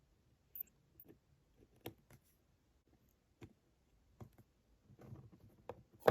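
Small, sharp clicks and taps of watchmaker's tools against the parts of a Waltham pocket watch movement, irregular and spaced out, with the loudest tap right at the end.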